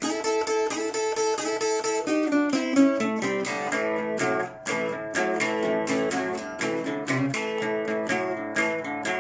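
Acoustic guitar played solo: a steady run of picked notes and chords, each note struck sharply and left to ring.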